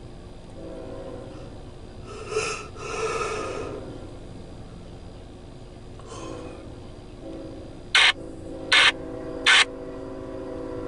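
Distant horn of an approaching CSX freight locomotive sounding a steady multi-note chord in two long blasts. A louder close noise comes about two to four seconds in, and three short, loud, sharp bursts come near the end.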